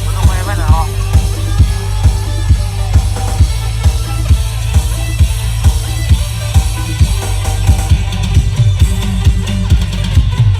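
Music with a steady kick-drum beat, roughly two beats a second, played loud through a 'turbo' bass speaker cabinet with four 18-inch drivers. Heavy, tight bass dominates.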